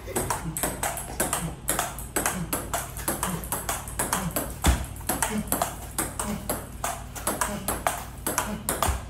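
Table tennis rally: the ball clicks back and forth off the bats and the JOOLA table, several sharp hits a second without a break.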